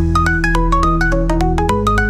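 Instrumental electronic music: a fast arpeggio of short, bright notes, about eight a second, over held bass notes that change pitch near the end.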